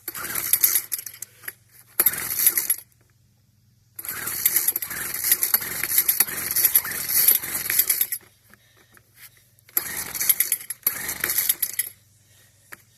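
Leaf blower clattering and rattling in five irregular bursts while it is handled and worked at to start it. The engine never catches.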